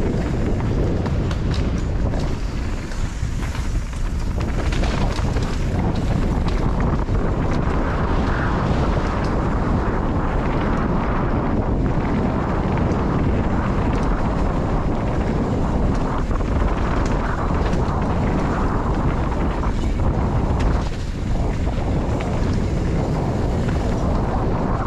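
Mountain bike descending a trail at speed, heard through a GoPro: wind buffeting the microphone over the hum of tyres on dirt, with small knocks and rattles from the bumps.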